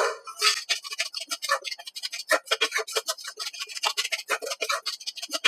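A metal spatula scrapes and stirs inside a steel pan in quick, repeated strokes, several a second. It is working a thick paste of wheat flour roasting in ghee, kept moving continuously so it browns without burning.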